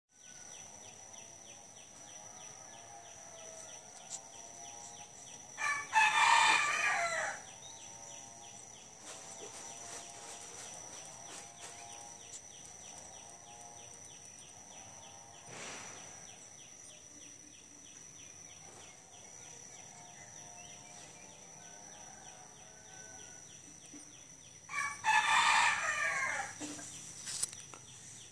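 A rooster crowing twice, about six seconds in and again near the end, each crow a loud call lasting a second or two. Behind it runs a steady high-pitched tone with a faint, fast, even pulsing.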